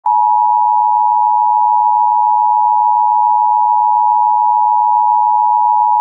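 Emergency Alert System attention signal: two steady tones near 1 kHz (853 and 960 Hz) sounded together as one loud, unbroken, dissonant alert tone.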